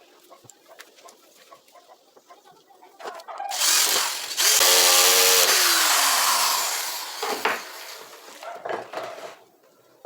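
Electric woodworking saw switched on, running loud for about three seconds, then its motor winding down with falling pitch after switch-off.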